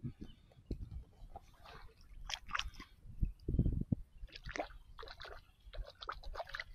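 Shallow sea water sloshing and splashing in irregular bursts around someone wading, with a heavier slosh about three and a half seconds in.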